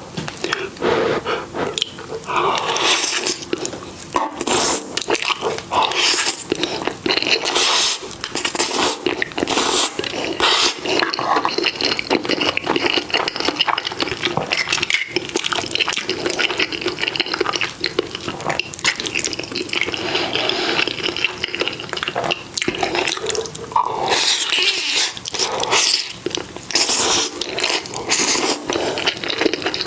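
Close-miked eating sounds: wet chewing and slurping with many quick sticky mouth clicks, continuing without a break.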